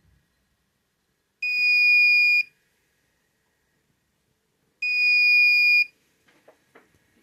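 Electronic buzzer on a Raspberry Pi burglar alarm sounding two steady, high-pitched one-second beeps a few seconds apart: the alarm has been triggered and is signalling a possible break-in. A few faint clicks follow near the end.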